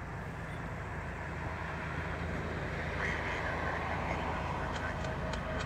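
Steady low engine rumble with outdoor background noise, slowly growing louder, and a brief high chirp about three seconds in.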